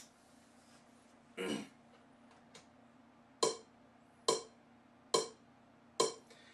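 Sharp percussive taps over a faint steady hum: a single tap about a second and a half in, then four evenly spaced taps a little under a second apart, each dying away quickly.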